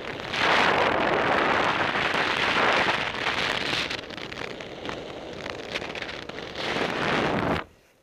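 Wind rushing over the microphone of a paraglider pilot's camera in flight, a loud hiss that eases in the middle and swells again before cutting off abruptly shortly before the end.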